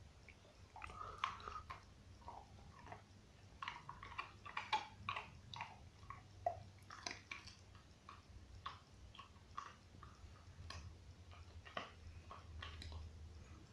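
Dog gnawing on a bone: faint, irregular crunches and clicks of teeth on bone.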